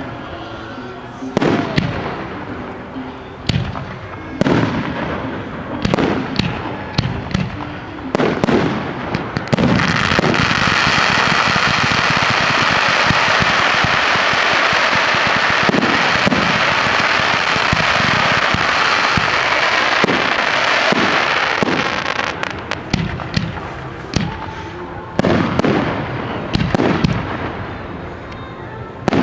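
Aerial fireworks going off: separate sharp bangs with echoing tails, then about ten seconds in a dense continuous barrage of rapid cracks lasting some twelve seconds, then separate bangs again near the end.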